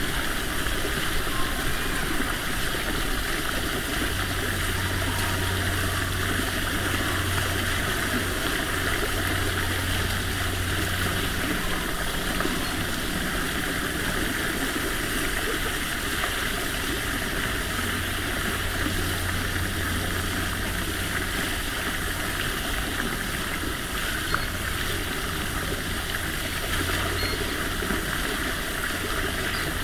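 Steady rushing and gurgling of running water, such as a stream. A low hum comes and goes in the background.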